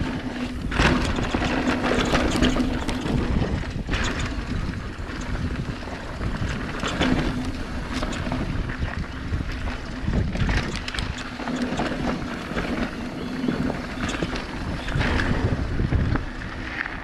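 Wind rushing over the camera microphone of a mountain bike riding down a dirt forest trail, with tyre noise and the bike rattling over bumps several times. A low buzz comes and goes.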